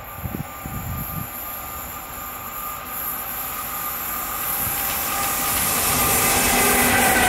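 Electric-hauled freight train approaching: rail and wheel noise grows steadily louder, with a thin whine over it that drops slightly in pitch near the end as the locomotives draw close.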